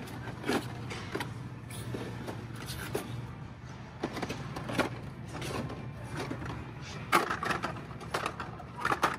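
Blister-packed die-cast toy cars being handled on store display pegs: scattered clicks and plastic rattles, a handful of sharper ones, over a steady low hum.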